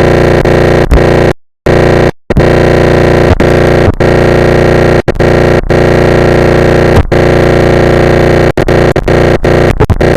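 Extremely loud, heavily distorted and clipped electronic noise: a dense, unbroken droning racket that cuts out briefly twice, about a second and a half and two seconds in.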